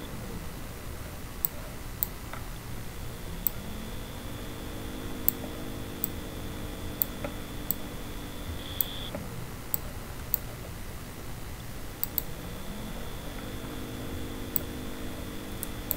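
Computer mouse clicks, sharp single clicks at an uneven pace of one every second or so, over a faint low hum that glides up and holds twice.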